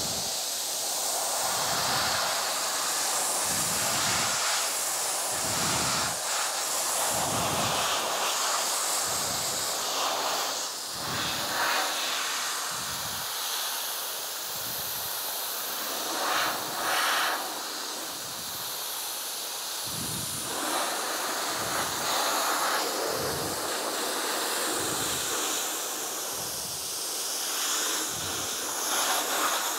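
Dry ice blaster running at maximum power: a loud, continuous hiss of compressed air and dry ice pellets blasting from the nozzle, with a low throb about once a second underneath.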